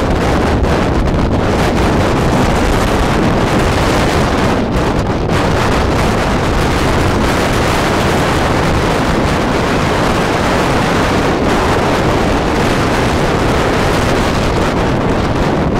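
Strong wind of about 30 knots blasting across the microphone: a loud, steady, low rumbling rush of wind noise.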